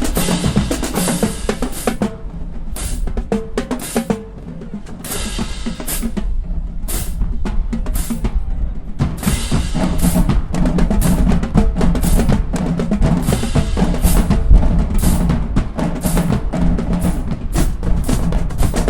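Marching band drumline playing a cadence: snare drums and bass drums, with rolls and heavy low drum hits. The drumming thins out briefly about four seconds in, then builds back up louder.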